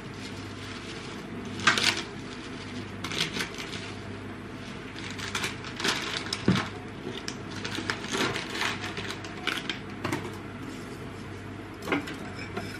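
A metal cooking utensil clinking and scraping against a pan of pav bhaji in irregular strokes, over a low steady hum.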